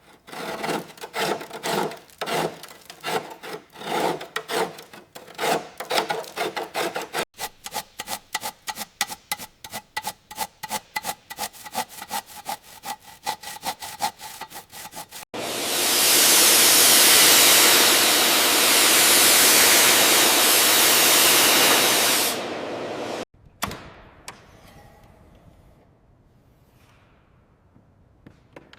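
Repeated hand strokes of an abrasive tool, such as a file or sanding block, worked over metal, quickening about seven seconds in. These are followed by a loud steady hiss of air lasting about seven seconds, which then cuts off.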